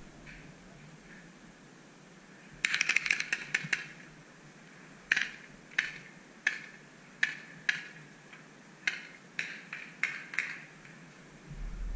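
Paintball markers firing across the field: a quick string of about ten shots, then single shots every half second to a second.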